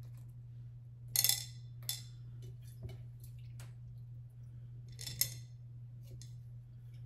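Short rustles and clicks of small decorations being handled against glass vases, the two sharpest about a second in and about five seconds in, over a steady low hum.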